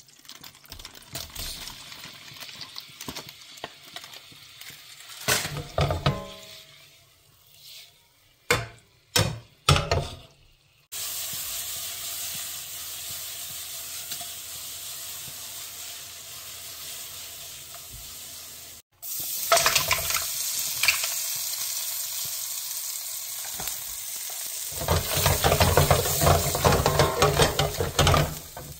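Butter and seafood sizzling in a nonstick frying pan, with a few sharp knocks of a utensil or pan in the first third. A steady sizzle starts suddenly about a third of the way in, breaks off briefly in the middle, and grows louder and more uneven with stirring near the end.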